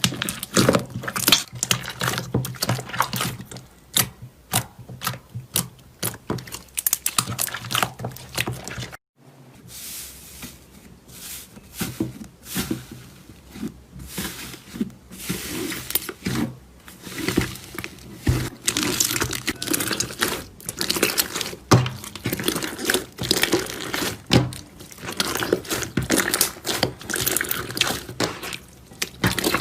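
Slime being squeezed and worked by hand: a dense run of small sharp clicks and pops, broken by a brief silence about nine seconds in.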